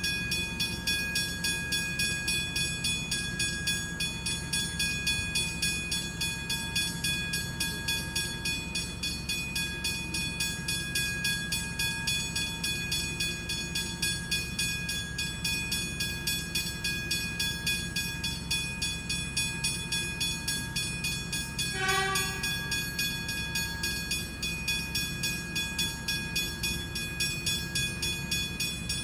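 Westinghouse second-generation hybrid level-crossing bells ringing, a rapid, even ding at about three to four strikes a second. A short horn blast sounds about two-thirds of the way in.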